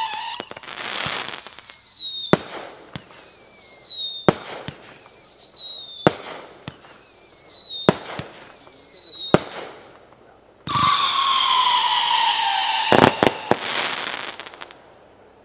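Magnus Fireworks 'Midnight Howling' firework cake firing whistling shots: each shot rises with a falling, wavering whistle and ends in a sharp bang, about one every two seconds. Near the end a louder, lower whistle runs for about two seconds, followed by a quick cluster of bangs and a crackle that fades out.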